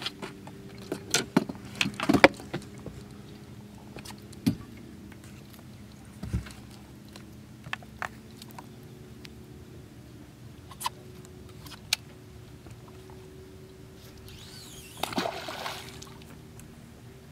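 Scattered clicks and knocks of fishing tackle being handled in a boat. About fifteen seconds in, a cast catfish rig with a big cut bait and sinker splashes into the water in a brief burst of noise lasting about a second. A faint steady hum runs underneath.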